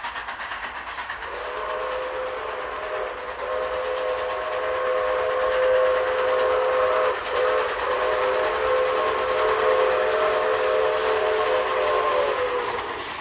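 Train running on the rails with a steady rolling noise. About a second in, its horn sounds a long multi-tone chord, held with two brief breaks and stopping near the end.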